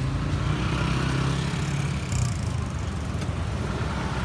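Street traffic: a motor vehicle engine running with a steady low hum, a little stronger in the first couple of seconds.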